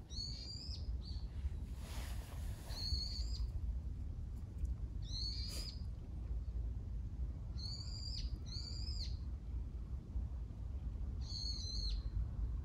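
A bird calling: six short high calls, each about half a second, spaced a few seconds apart, over a low steady rumble.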